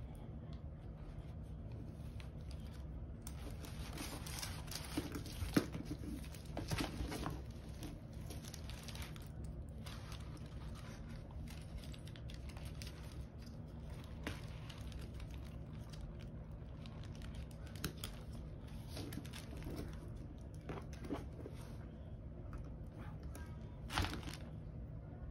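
Paper and plastic wrapping rustling and crinkling as a handbag's shoulder strap is handled and unwrapped, with scattered small clicks of the strap's metal clasp being fitted; the sharpest click about five and a half seconds in.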